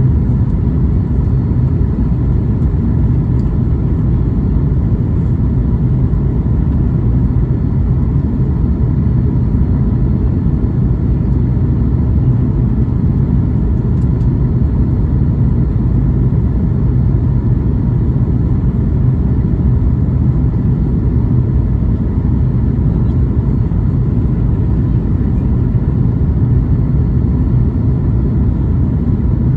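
Steady low rumble of engine and airflow noise inside the cabin of a Boeing 737 MAX 8, holding at a constant level throughout.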